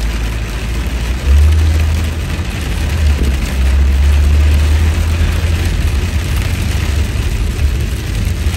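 Car cabin noise while driving in the rain: a deep rumble of engine and road, with an even hiss of tyres on wet pavement and rain on the car. The rumble swells about a second in and again a couple of seconds later.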